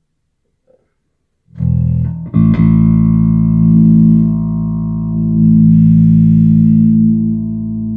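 Electric bass guitar played through an Aguilar TH500 amp head while its mid controls are being dialed in. The bass comes in about a second and a half in with a note, then strikes again and lets long notes ring, swelling and easing.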